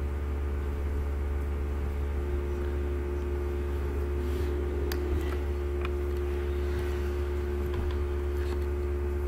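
Steady low hum with a fainter steady higher tone above it, and a couple of faint clicks about five and six seconds in.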